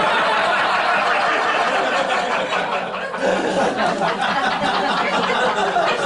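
Audience laughing, loud and sustained, in response to a punchline.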